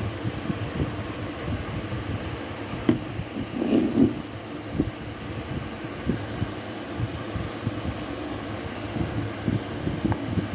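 Handling noise as a small ceramic mug is picked up and turned by hand: irregular muffled low thumps and rubbing, with a couple of light knocks, over a steady background hum.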